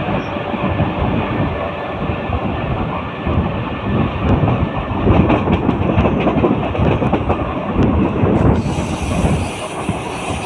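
Mumbai suburban local electric train running at speed, heard from on board: a steady rumble of wheels on the track with scattered clicks over rail joints, and a hiss in the highs joining in near the end.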